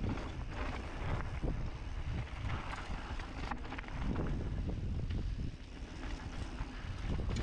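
Wind buffeting the microphone over the noise of a mountain bike rolling down a dirt trail, with short knocks and rattles scattered through.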